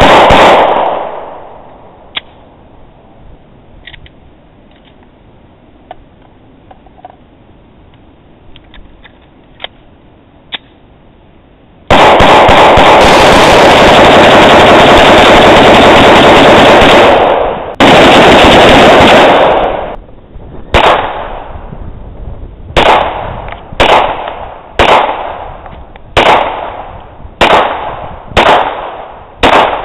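Gunfire: one shot at the start, a long pause, then about six seconds of rapid fire so fast the shots run together, a second short string, and then single shots spaced about a second apart. The shots are loud enough to max out the recording.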